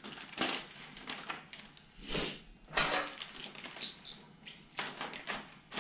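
Hands handling window-tint film and a cutting plotter's blade carriage: irregular clicks, scrapes and crinkling rustles, with no motor running.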